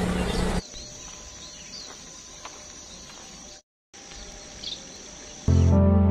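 Steady high-pitched insect drone with a few short bird chirps over it, after a louder rushing noise cuts off about half a second in. Background music comes in near the end.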